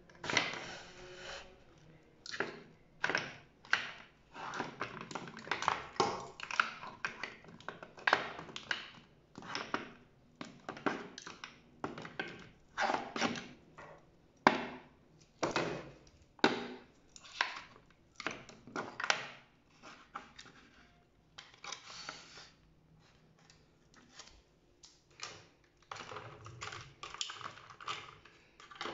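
Cosmetic bottles and jars, plastic and glass, knocking and clicking as they are picked up and set down on a bathroom counter and wooden tray. The knocks are irregular, one or two a second, and thin out a little after the middle.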